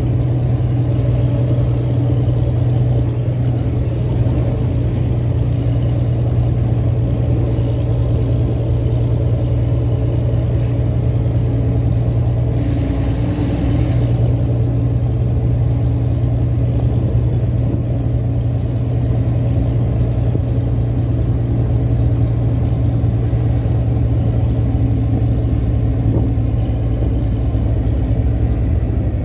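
Volvo NH 380 truck's diesel engine running steadily while driving on the highway, heard from inside the cab along with road noise. A brief hiss comes about halfway through.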